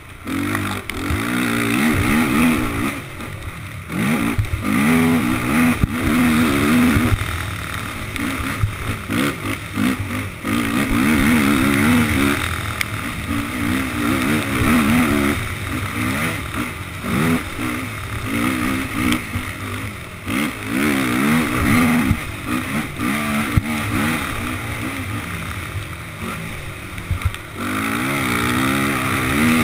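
Honda race quad's engine, heard on board, revving hard and easing off again and again as it is ridden flat out around a motocross track, its pitch rising and falling with each surge.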